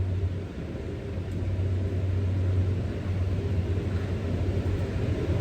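Steady low machinery hum with a rumble underneath, holding level throughout.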